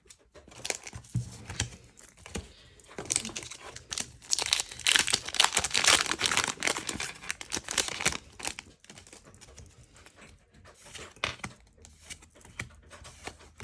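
Foil wrapper of a Pokémon card booster pack crinkling and tearing open, with a dense run of crackling from about four to eight seconds in and lighter rustles and clicks around it.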